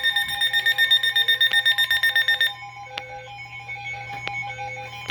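Weather alert radios sounding their alarm: a loud, fast-pulsing high beep, about four to five pulses a second, that stops about two and a half seconds in. Softer beeping at several other pitches carries on after it.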